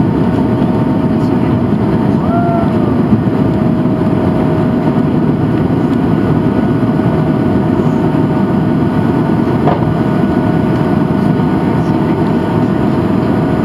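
Airbus A220-300 cabin noise during the takeoff climb: its Pratt & Whitney PW1500G geared turbofans running at high thrust, heard over the wing as a loud, steady rumble with a few held tones above it.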